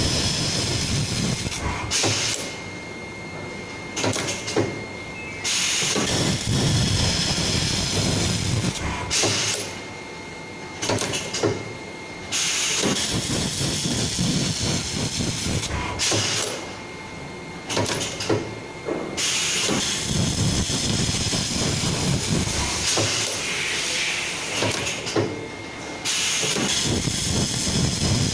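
Fully automatic laser saw segment welding machine welding segments onto a steel saw blade core: stretches of hissing, crackling noise a few seconds long, broken by short quieter pauses, with a faint steady high whine underneath.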